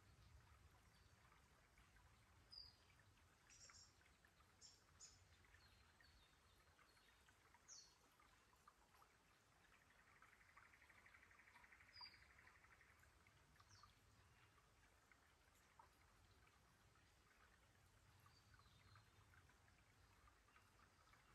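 Very faint forest ambience: scattered short, high bird chirps over a low, steady hiss, with a faint, fast trill lasting about two seconds near the middle.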